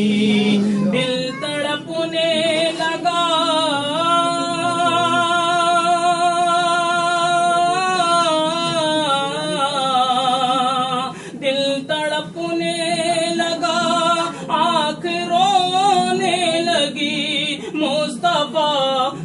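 A solo voice singing a naat unaccompanied, drawing out the words in long melismatic notes with a wavering vibrato; one note is held for about four seconds from early in the passage, and there is a short break a little past the middle.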